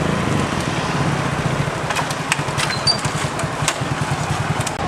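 Motorcycle engine running with a steady low pulsing note, with a few sharp clicks partway through.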